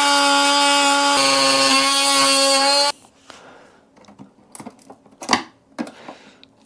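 Cordless oscillating multi-tool blade cutting into the plastic case of a LiFePO4 battery: a steady high-pitched buzz with a short break about a second in, stopping abruptly about three seconds in. After that come light clicks and scrapes of a screwdriver prying at the plastic case.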